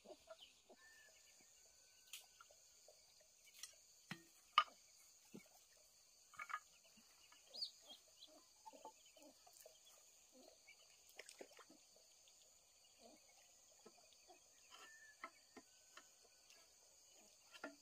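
Near silence: a faint, steady high insect chorus, with scattered soft clicks and knocks.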